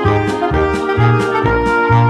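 Background music: an upbeat jazzy tune with horn-like melody, a walking bass and a steady beat.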